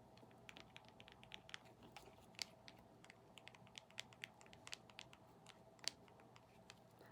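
Faint ASMR tapping: light, irregular taps and clicks on a small object, a few every second, with no whispering over them.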